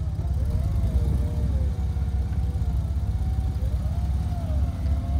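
Vehicle engine idling with a steady low rumble, over which a higher whine slowly wavers up and down in pitch.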